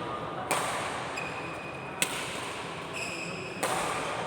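Doubles racket-sport rally: three sharp racket hits about a second and a half apart, with short shoe squeaks on the court floor between them.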